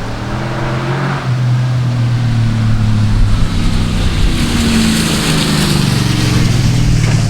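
Exhaust of a 1999 Chevy Silverado's 5.3L V8 through Cherry Bomb Salute mufflers, running under throttle with a deep, steady drone that gets louder about a second in, along with wind noise.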